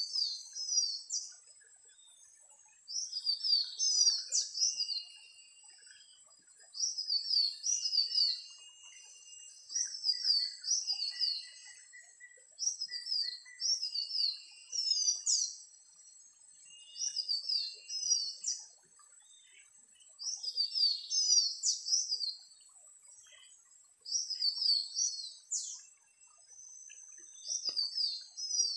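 Recorded great iora (cipoh jantung) song played on a loop through a Bluetooth speaker as a lure: short phrases of quick rising-and-falling whistled notes, repeated at even spacing about every three and a half seconds, over a steady high hiss.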